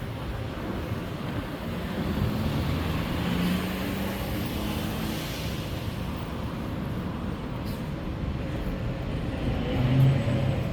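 Steady city road traffic: cars and other vehicles passing, with a louder engine hum near the end.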